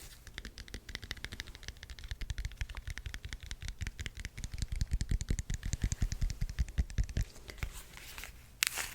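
Rapid, even clicking taps close to a microphone, about a dozen a second, an ASMR trigger sound. They stop about three-quarters of the way through.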